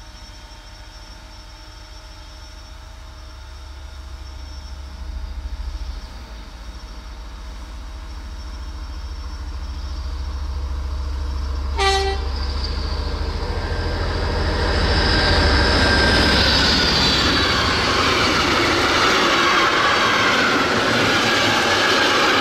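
DR class 119 diesel-hydraulic locomotive approaching with its engine rumbling, growing steadily louder. About halfway through it gives one short horn blast, then passes close by in a loud roar of engine and wheels.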